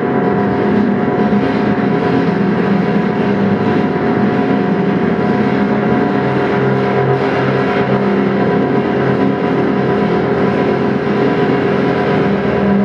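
Loud amplified live band music, a steady drone of layered sustained tones over a dense wash of sound, with low notes that come and go.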